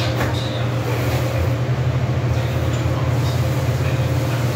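A steady, loud low drone like a running machine, with a few faint clicks and scrapes near the start.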